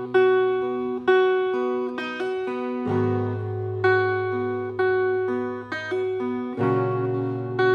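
Acoustic guitar played solo in an instrumental passage between verses: a picked chord pattern with a fresh accent about once a second. The bass note changes twice, about three seconds in and again near the end.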